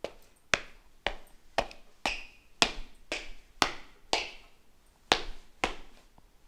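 A steady series of sharp taps or knocks on a hard surface, about two a second, some with a short high ring after the hit and one beat skipped a little past the middle.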